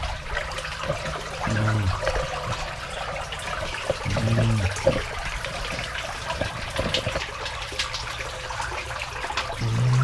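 Irrigation ditch water trickling and splashing through the headgate at a reduced flow, about two inches below its normal level. Three short low hums break in, near the start, in the middle and at the very end.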